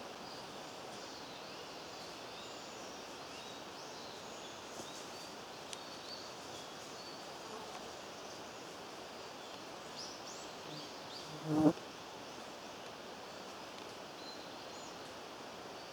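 A brief buzzing sweep, something passing close by at high speed through the air, rising in pitch and peaking sharply about eleven and a half seconds in. Faint high chirps sound throughout in the background.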